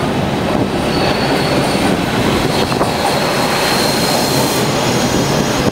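TTC subway train pulling into the station platform: a steady loud rumble of wheels and running gear, with a thin high squeal from about a second in until shortly before the end.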